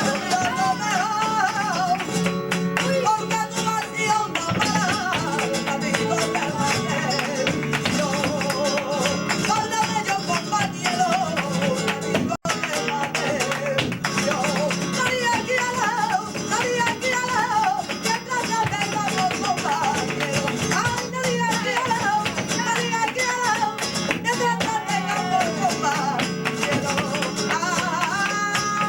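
Live flamenco bulería: guitar with a singing voice running a wavering, ornamented melody over it, and dense sharp percussive strikes throughout. The sound cuts out for a split second about 12 seconds in.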